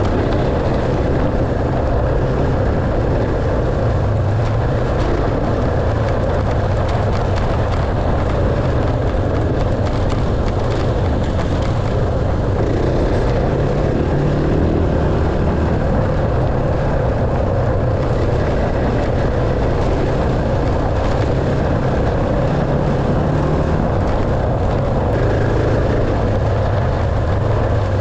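Dirt bike engine running steadily while being ridden, its pitch shifting a little as the revs rise and fall.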